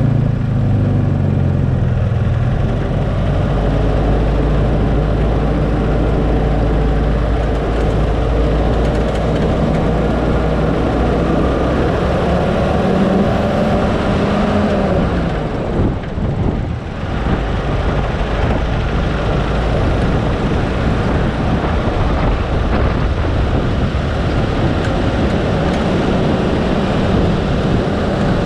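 Car engine and road noise while driving, the engine's pitch rising and falling with speed and easing off briefly about sixteen seconds in.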